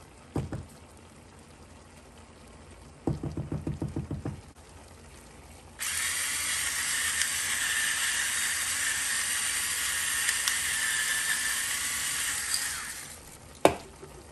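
Battery-powered electric pepper mill grinding pepper for about seven seconds, a steady high grinding whirr, after a short rapid rattle of clicks about three seconds in. A sharp knock near the end.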